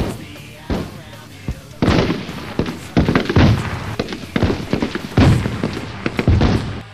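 Gunfire sound effects: a few single shots, then bursts of rapid shots from about two seconds in, over music.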